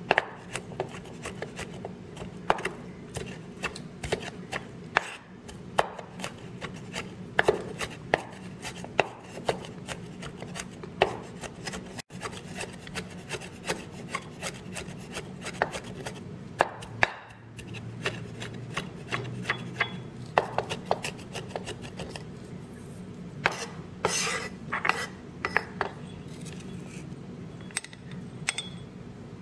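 Cleaver mincing garlic and shallot on a thick wooden chopping block: many quick, irregular knocks of the blade on the wood, with the blade scraping across the board. Near the end the blade scrapes the minced pile off the board into a bowl.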